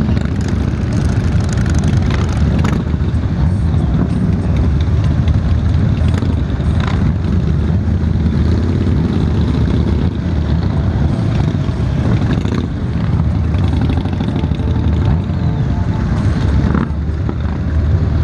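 Several motorcycle engines running at low speed, including the Honda Valkyrie F6C's flat-six under the camera, a steady low rumble with a few light clicks.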